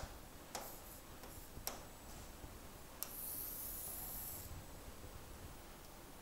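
Stylus writing on a tablet: a few light taps in the first two seconds, then a scratchy stroke lasting about a second and a half.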